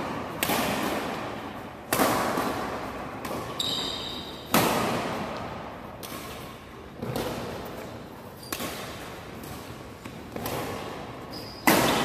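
Badminton rally: racquets hitting a shuttlecock about seven times, a sharp crack every one and a half to two and a half seconds, each ringing out in the hall's echo. A couple of brief high squeaks come between hits.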